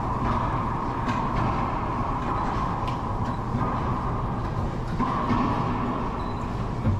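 Racquetball rally on an enclosed court: a few sharp knocks of the ball off racquets and walls, about a second in, near three seconds and around five seconds, over a steady rumbling noise.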